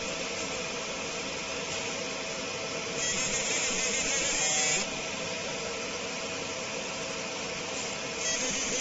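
Leapion 60W fiber laser marking machine running with a steady noise; about three seconds in the laser fires on stainless steel and a louder high hiss sets in for just under two seconds, then cuts off as the machine goes back to its aiming preview.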